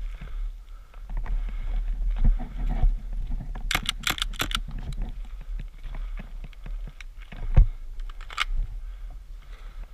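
Airsoft gunfire: a quick run of about seven sharp clicking shots about four seconds in, among scattered clicks and rustling of movement. About three seconds later comes a single heavy thump.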